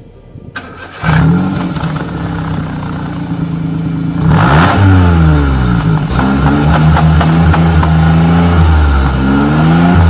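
Small car engine running through aftermarket dual exhaust tips: it comes in suddenly about a second in, idles, then is revved, with a sharp rev about four seconds in and several more rises and falls after.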